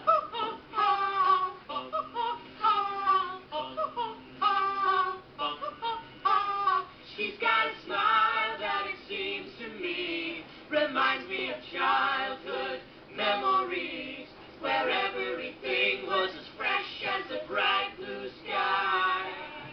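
A group of girls singing a song together, in phrases with held notes.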